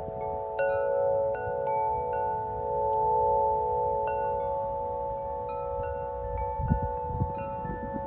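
Two Corinthian Bells tubular wind chimes, a 50-inch and a 30-inch, both tuned to the scale of A, struck by their clappers again and again and ringing in long, overlapping deep tones. Near the end come a couple of low gusts of wind on the microphone.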